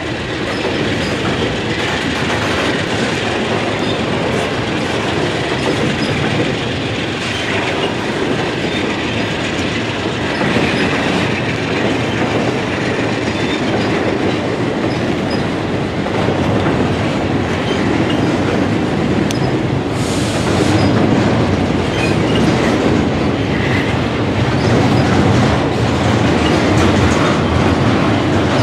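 Container freight cars rolling past close by: a steady rumble of steel wheels with clickety-clack over the rail joints and occasional squeal. A short high-pitched burst comes about two-thirds of the way through.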